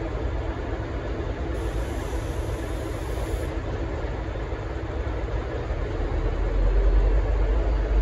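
V/Line N class diesel-electric locomotive idling at the platform, a steady low engine rumble with a faint hum; the low rumble swells louder about six seconds in.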